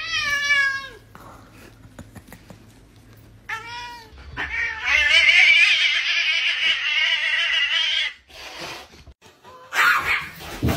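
A domestic cat yowling during a scuffle with a dog: a short falling yowl at the start, a brief cry about three and a half seconds in, then one long wavering yowl lasting about four seconds. A rough, noisy burst follows near the end.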